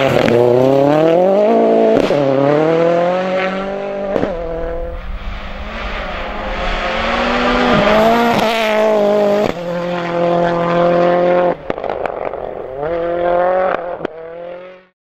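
Mitsubishi Lancer Evo 9 rally car's turbocharged four-cylinder engine, tuned to about 470 hp, revving hard on a gravel stage. The pitch climbs and drops again and again, with sharp breaks at the gear changes and lifts, and the sound cuts off suddenly near the end.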